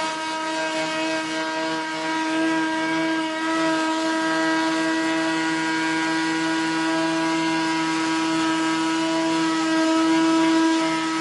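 Vacuum cleaner (Hoover) running steadily: a constant high motor whine over a rush of air.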